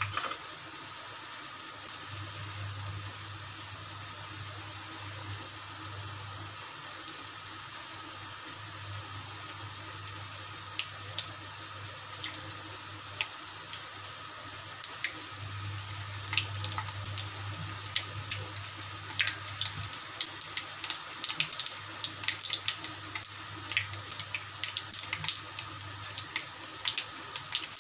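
Hot oil sizzling steadily in a kadai with mustard seeds starting to pop about ten seconds in. The pops come thicker and faster toward the end as the seeds splutter, the sign that the oil is hot enough for the tempering to go on.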